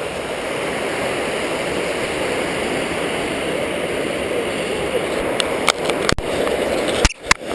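Waterfall rushing steadily, a dense roar of falling water. A few sharp clicks and brief dropouts come near the end.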